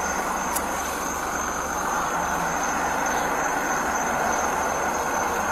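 Steady vehicle and road-traffic noise with a thin, high, steady tone above it.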